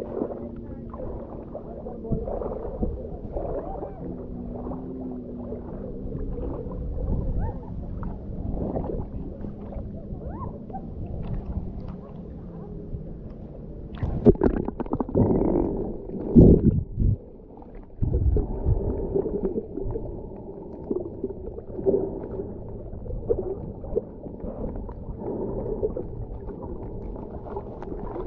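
Shallow water sloshing and gurgling around an action camera in a waterproof housing as it is dipped to the surface and held under water, the sound muffled and dull throughout. Louder splashing comes about halfway through as the camera goes into the water.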